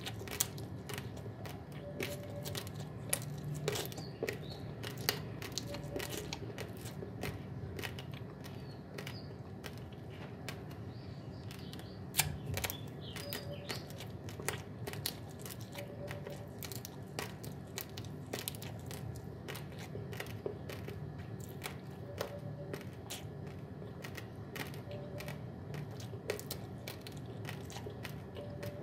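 Raw, uncooked long-grain basmati rice being chewed close to the mouth: a dense, irregular run of small sharp crunches as the dry grains crack between the teeth.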